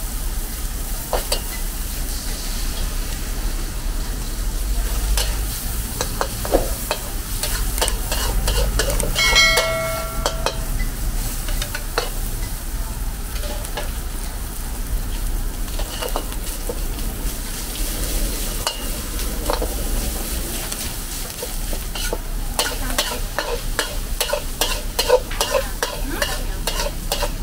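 Stir-frying in a wok: food sizzles steadily while a metal spatula clanks and scrapes against the pan. There is a short ringing tone about nine seconds in and a quick run of clatters near the end.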